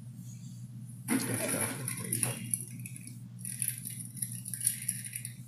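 Packaging and small accessories rustling and rattling as they are handled and taken out of a box, busier from about a second in.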